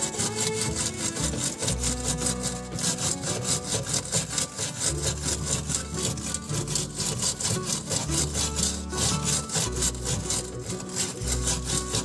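Steel wire brush scrubbing back and forth on a refrigerator's freezer evaporator plate: a rasping scrub of about four strokes a second, cleaning and roughening the surface around a puncture before it is patched. Background music plays underneath.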